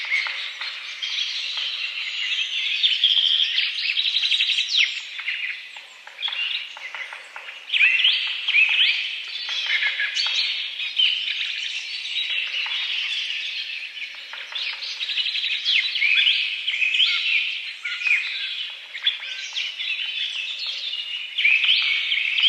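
Many small birds chirping and trilling at once, a dense, continuous chorus of overlapping calls.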